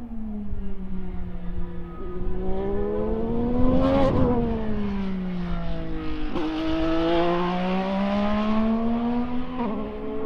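Ilmor-built 2024 Chevrolet 2.4-litre turbocharged V6 in an IndyCar running at speed on track. Its pitch climbs to a peak about four seconds in, falls away, then climbs again and drops suddenly near the end.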